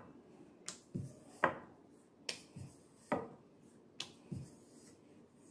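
Wooden rolling pin knocking and clicking against a hard countertop while a small disc of dough is rolled out and turned. There are about eight sharp knocks at uneven intervals.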